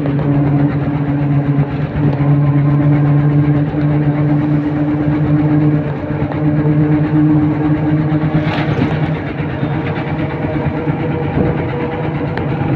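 Motor vehicle driving at steady road speed: a steady low engine hum with a droning tone above it, over road and wind noise. The engine note fades somewhat near the end.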